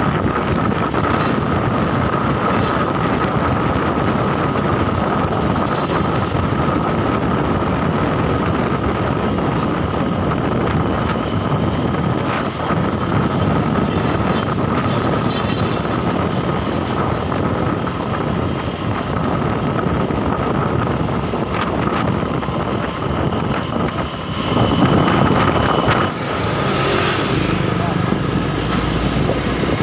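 Highway traffic passing close by: a continuous wash of engine and tyre noise from trucks and other vehicles, swelling louder for a passing vehicle about 25 seconds in.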